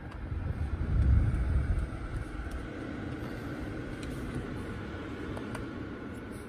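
Low rumble of the microphone being handled for the first two seconds, then a steady background hiss with a few faint clicks as the car's climate-control buttons are pressed.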